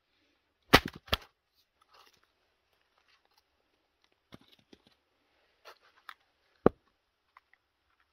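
Small axe chopping firewood on a chopping block: two sharp wooden chops about a second in as the log is split, then lighter knocks of split pieces being handled, and another sharp wooden knock near the end.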